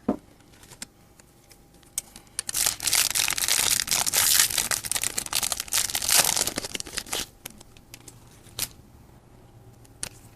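Pokémon trading card booster pack's foil wrapper being torn open and crinkled: scattered clicks and rustles, then a dense stretch of crackling from about two and a half seconds in to about seven, then a couple of sharp crinkles near the end.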